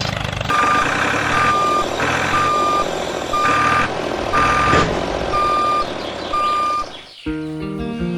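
A vehicle's reversing beeper sounds about once a second, seven times, over a steady running-engine noise. It cuts off suddenly near the end, and plucked-string music takes over.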